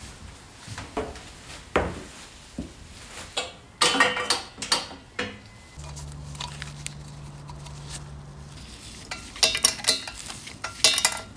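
Hand tools clinking, knocking and scraping against the metal of a motorcycle engine: a string of sharp clatters, busiest about four seconds in and again near the end. A steady low hum runs for a couple of seconds in the middle.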